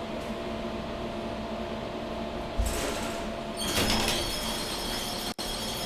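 Elevator cab running with a steady mechanical hum, a low thump about two and a half seconds in, then a louder whirring from the door operator as the sliding doors move.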